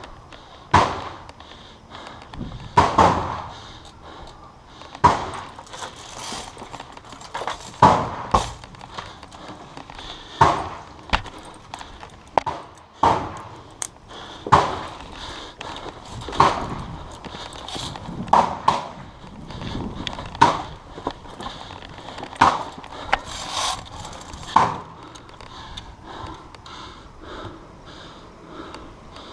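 Sharp cracks and knocks at irregular intervals, roughly one every second or two, each trailing off quickly, typical of airsoft guns firing single shots and BBs striking nearby surfaces during a game.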